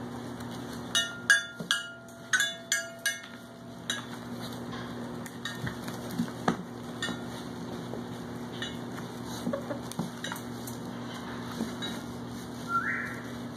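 A quick run of bright metallic clinks with a ringing tone in the first few seconds, then scattered light taps and rattles as puppies move about a wire playpen hung with chain toys. A short rising squeak comes near the end, over a steady low hum.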